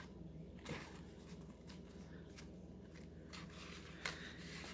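Faint rustling and a few light taps of cardstock photo mats being handled in a paper mini scrapbook album, with a soft swish of paper near the end as a page is moved.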